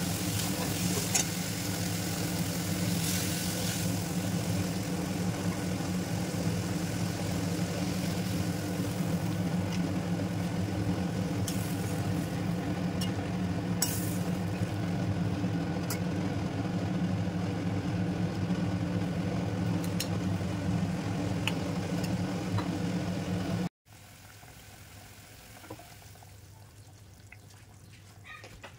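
Masala and vegetables sizzling in a kadai over a steady low hum, with a few sharp clinks and scrapes of a metal spatula against the pan. About 24 seconds in it cuts to a much quieter stretch with faint bubbling of the curry simmering.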